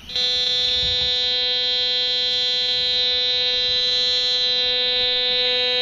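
A Fisher F2 metal detector in pinpoint mode gives a steady, buzzy tone of constant pitch and loudness while its coil is held over a buried coin. The tone signals that the target lies right under the coil.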